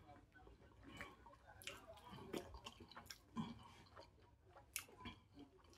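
Faint chewing and mouth sounds of a man eating steamed fish with his fingers: soft wet smacks and sharp little clicks at irregular intervals.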